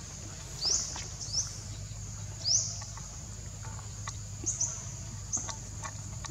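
Birds chirping: five short, quick upward-sweeping chirps, three in the first two and a half seconds and two shorter ones later, over a steady high hiss.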